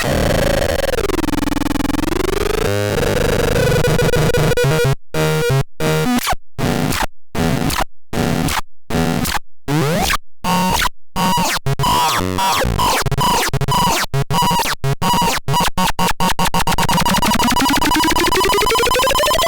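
Synthesized electronic sound effects: a tone slides down and back up, then a choppy stuttering stretch whose cut-outs come faster and faster, ending in rising sweeps over a steady high tone.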